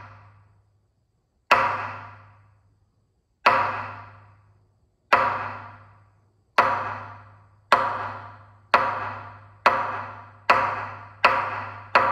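Hokku, the large dharma drum of a Zen monastery, struck with wooden sticks in the Shōkoku-ji pattern: about ten single deep strokes, each ringing out, coming faster and faster from about two seconds apart to under a second apart. It is the drum signal that calls the monks to morning sutra chanting and zazen.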